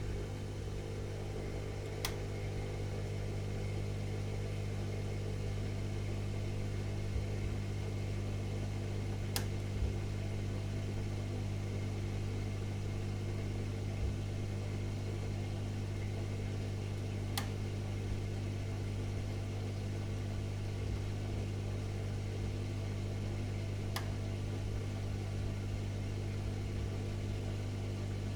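Dishwasher running mid-cycle: a steady, even motor hum, with a few faint ticks spaced several seconds apart.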